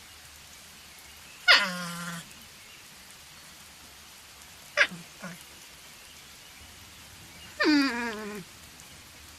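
An animal calling three times: a long call about a second and a half in, a short one near the middle, and another long one near the end, each sliding down in pitch.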